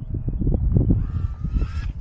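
Wind buffeting the microphone, with the distant whine of an FPV quadcopter's motors rising in pitch from about a second in.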